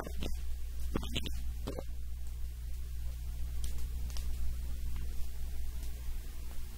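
Steady low electrical mains hum, with two short sounds about a second in and a few faint clicks near the middle.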